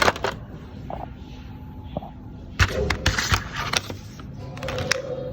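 Plastic keycaps clicking and clacking as they are pulled off and pressed onto a mechanical keyboard's switches, in short clusters of sharp clicks: one at the start, a busier run from about two and a half to four seconds in, and another near the end.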